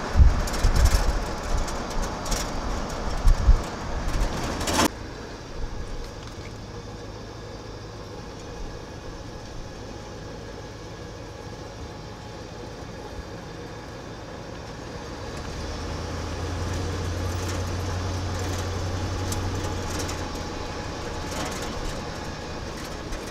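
Cab noise of a 1977 Ford F-250 pickup on the move: engine drone and road noise. The first few seconds are rough and loud, with wind buffeting and low thumps, then the sound drops suddenly to a steadier low engine hum that swells for a few seconds and eases again.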